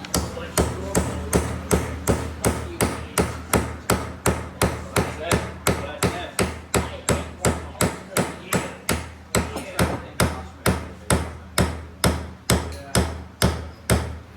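Steady, rapid hammer blows on the metal of a Mercury Force 70 outboard engine, a little under three strikes a second. A stuck part is being driven off the engine block.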